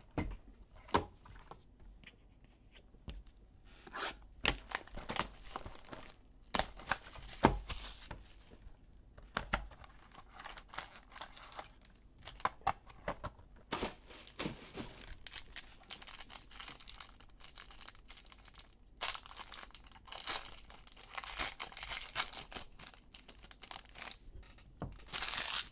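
Trading-card box being opened and its foil card pack torn open by hand: scattered clicks and scrapes of cardboard, then long stretches of foil wrapper tearing and crinkling, loudest just before the end.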